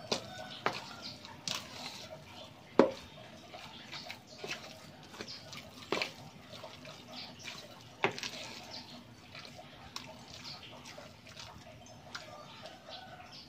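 Wet squelching of minced pork being kneaded by hand in a stainless steel pot, with irregular sharp slaps as the meat is lifted and dropped back in. The loudest slap comes about three seconds in.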